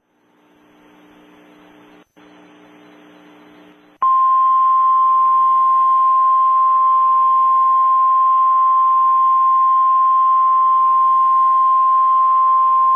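Emergency Alert System attention tone: one loud, steady single-pitched tone that begins about four seconds in. Before it comes a faint low hum with a brief dropout near two seconds.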